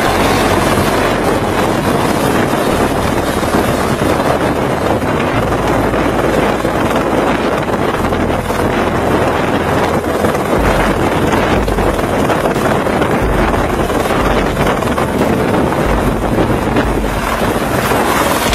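Light helicopter hovering low, its rotor and turbine running steadily, with heavy wind noise buffeting the microphone.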